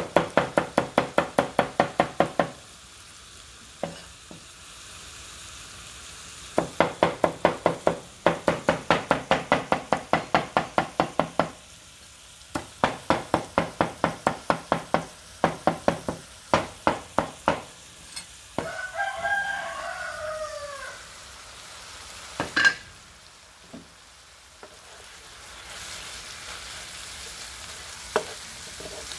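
A cleaver chopping dried red chillies on a round wooden chopping board, in quick runs of sharp knocks about six a second with short pauses between runs. A rooster crows about two-thirds of the way in. Near the end a single loud knock comes, then frying food sizzles in a pan.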